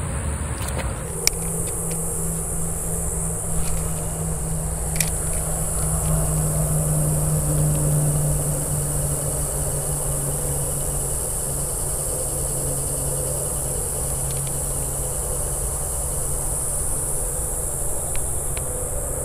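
A steady, distant engine hum, a little louder about a third of the way in, under a steady high insect drone.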